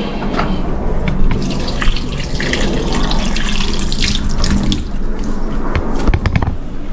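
Water running from a tap into a stainless steel sink, splashing irregularly as tomatoes are rubbed and rinsed by hand under the stream.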